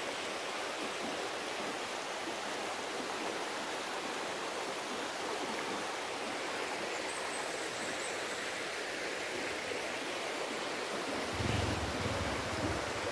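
Steady, even rushing hiss of tropical forest ambience, with low rumbles near the end.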